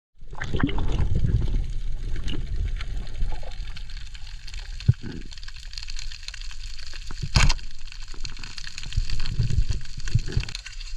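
Water sloshing and gurgling, a rough, low rumble with crackles, broken by a sharp knock about five seconds in and a louder click about seven and a half seconds in.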